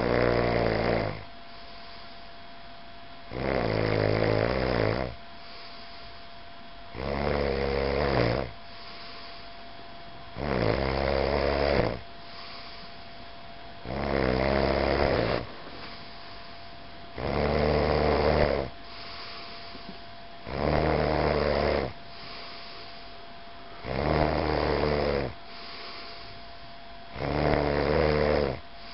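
A person snoring steadily in sleep: nine loud snores, each lasting one and a half to two seconds, at even intervals of about three and a half seconds, with quieter breathing between.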